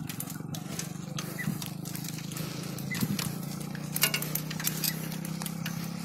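A bicycle rattling over a cracked, potholed road with gravel, giving many short clicks and crackles, over a steady low hum.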